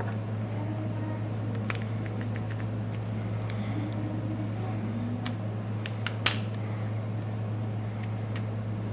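A steady low hum with a few scattered light clicks, the loudest about six seconds in: a plastic pry tool snapping at the clips of a Nexus 5's back cover.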